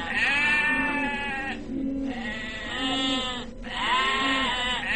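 Sheep bleating: about three long bleats, one after another.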